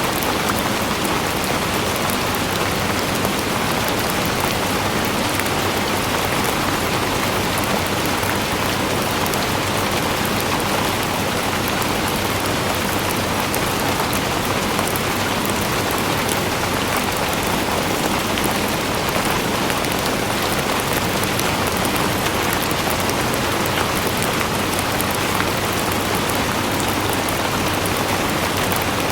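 Steady rain falling on a surface, an even rush of many fine drops that keeps the same level throughout.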